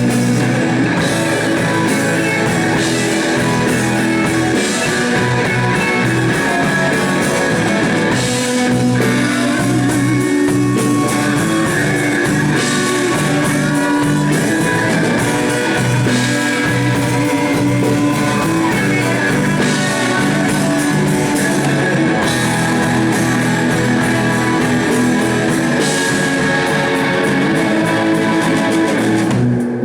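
Live rock band playing a bluesy instrumental passage: guitar riffing over a drum kit, with cymbal crashes every few seconds and no singing.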